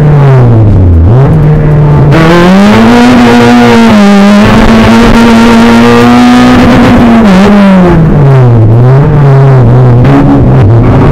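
Loud onboard sound of a Suzuki race car's engine driven hard. The revs drop sharply about a second in, climb and hold high for several seconds, then fall again near the end and pick up in steps through gear changes.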